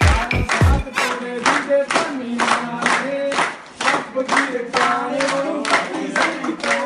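A dance track with deep falling bass notes stops about a second in; then a group of people claps in a steady rhythm, about three or four claps a second, while voices sing along.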